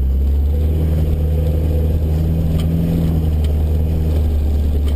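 Land Rover Discovery 1's 300Tdi 2.5-litre four-cylinder turbo-diesel running steadily as the vehicle drives along a forest dirt track, heard from inside the cabin as a low drone.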